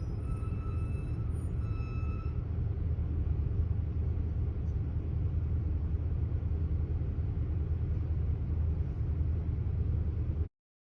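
Steady low rumble of a car's engine and tyres heard from inside the cabin while driving, with a faint high tone over the first couple of seconds. The sound cuts out abruptly near the end.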